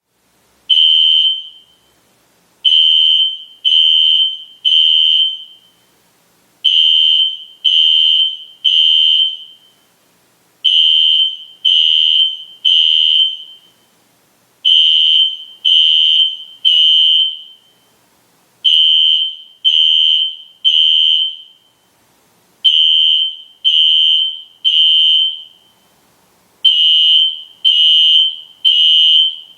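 System Sensor SpectrAlert Classic fire alarm horn sounding a loud, high-pitched tone in the temporal-three pattern: three blasts, a pause, and again about every four seconds. This is the standard fire evacuation signal.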